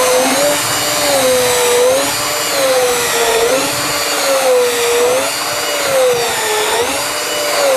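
Cordless drill spinning a rotary brush over a snowboard base, its motor whine wavering up and down in pitch every second or two.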